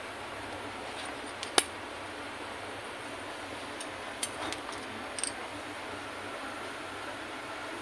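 Gas stove burner hissing steadily under a roti held over the open flame, with one sharp metallic click of steel tongs about one and a half seconds in and a few lighter clicks near the middle.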